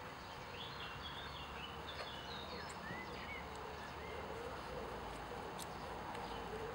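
Small birds chirping: a run of short, high calls in the first half, over a steady outdoor background hiss.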